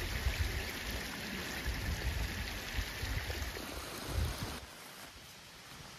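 A steady rushing hiss with wind buffeting the microphone in irregular low gusts. About four and a half seconds in, it all drops suddenly to a quieter, thinner hiss.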